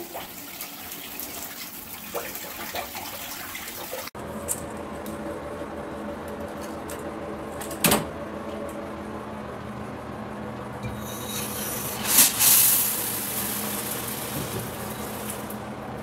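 Water running in a shower as a steady hiss, with a sharp knock about eight seconds in and a louder knock about twelve seconds in.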